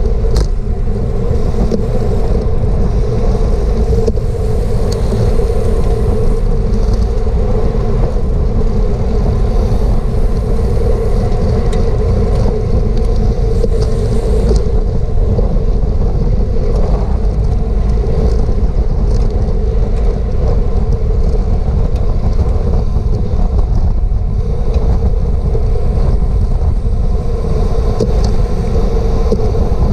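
Wind rushing over a bicycle-mounted GoPro's microphone at race speed: a loud, steady, low rumble with a steady hum running underneath.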